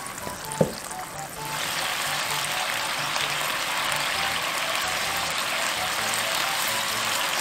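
Soy-paste sauce boiling hard in a wok over high gas heat to reduce, a steady sizzling, bubbling hiss that comes in about a second and a half in, after a single light tap. Soft background music underneath.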